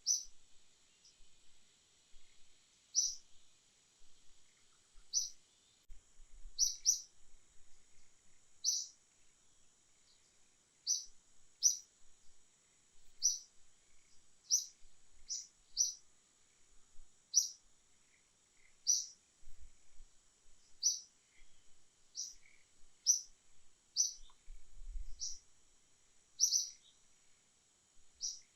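A bird chirping over and over: short, high single chirps about once a second, some in quick pairs, over a faint steady high hiss.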